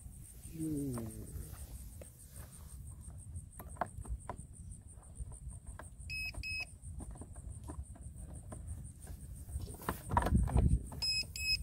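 Insects trilling steadily in the grass, over light clicks and knocks of a plastic trash bin being handled as a small FPV racing quad is worked loose from it. A short double electronic beep sounds twice, about six seconds in and near the end.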